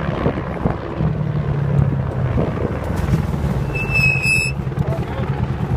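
Polaris side-by-side UTV engine running as the vehicle drives in and pulls up. A brief high-pitched brake squeal comes about four seconds in, as it stops.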